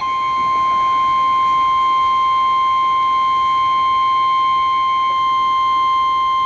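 NOAA Weather Radio warning alarm tone: a single loud, steady high tone held without a break, the signal that a warning message, here a severe thunderstorm warning, is about to be broadcast.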